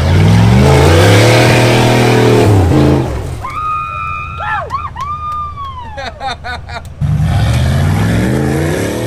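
Rock-crawler buggy's engine revving hard as it climbs a steep ledge, pitch rising then falling away after about three seconds. A few seconds of high whistle-like tones that glide downward and a run of quick ticks follow, then the engine revving comes back suddenly about seven seconds in.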